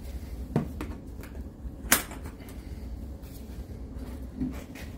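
A few sharp clicks and knocks over a steady low hum, the loudest click about two seconds in.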